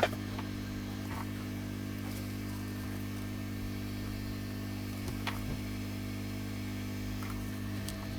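Steady electrical hum with a few faint clicks.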